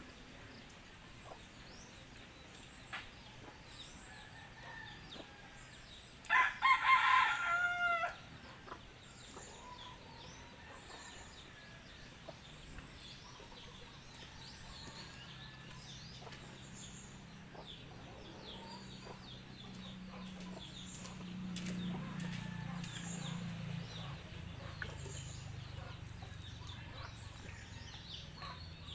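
A rooster crows once, loudly, about six seconds in: a call of about two seconds that ends on a falling note. Faint high chirps of small birds run throughout, and a low drone swells in the second half, then drops in pitch near the end.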